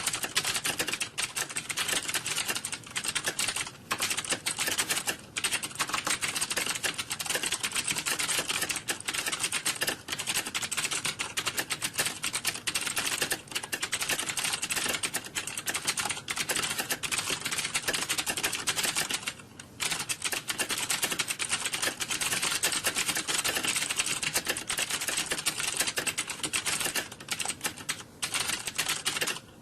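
Fast, continuous typing on a computer keyboard: a dense stream of key clicks with a few short pauses, the longest about twenty seconds in.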